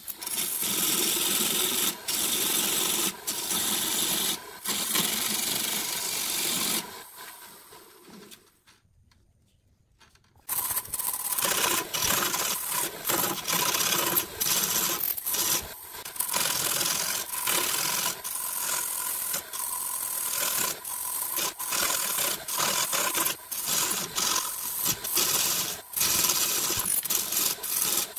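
Wood lathe turning a glued-up segmented blank while a turning tool cuts it on the tool rest: a continuous rasping, scraping cut full of short irregular strokes. About seven seconds in the cutting fades out to near silence for a few seconds, then starts again.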